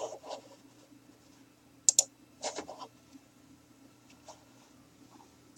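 A few light, sharp clicks and small handling ticks over a faint steady hum: a double click about two seconds in, a quick run of small ticks just after, and another double click at the end.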